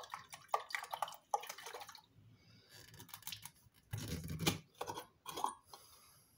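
Water and ash sloshing inside a plastic jar as it is shaken by hand, a quick run of splashes in the first two seconds. About four seconds in, a louder scraping, knocking burst as the jar's screw lid is twisted off.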